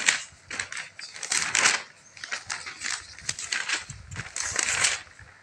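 Magazine pages rustling and flapping close to the microphone in repeated, irregular crinkly bursts, with a few soft handling thumps.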